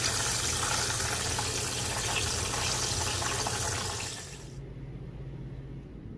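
Water running from a tap, shut off suddenly about two-thirds of the way through, leaving a low steady hum.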